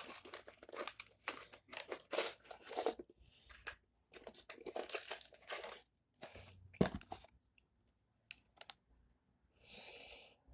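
Plastic packaging crinkling and tearing in irregular rustles as deadbolt parts are unpacked, with a single sharp click about seven seconds in.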